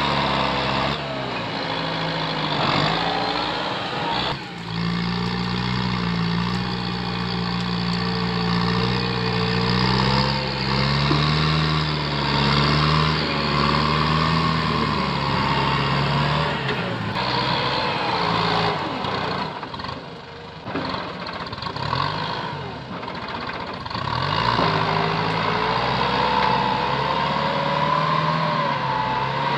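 Kubota tractor's diesel engine working under load as its front blade pushes through brush, the engine note rising and falling. The sound drops quieter and uneven for a few seconds past the middle, then comes back up.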